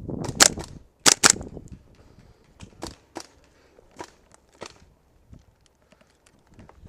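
Gas blowback airsoft guns firing: three loud, sharp cracks in the first second and a half, then scattered fainter shots.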